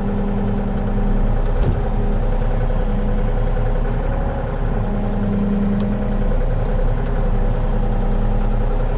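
Diesel engine of a compact earth-moving machine running steadily under work while moving dirt, with a single brief clunk just under two seconds in.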